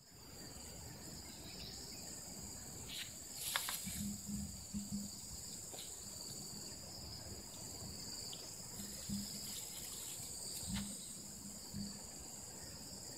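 Insects trilling steadily in a high-pitched, even drone, with a few faint taps and rustles a few seconds in and again near the end.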